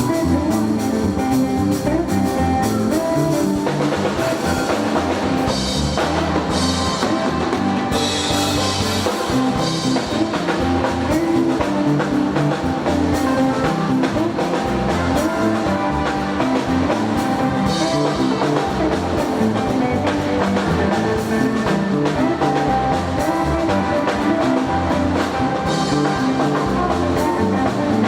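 Instrumental band music: guitar over a drum kit, with cymbal crashes now and then.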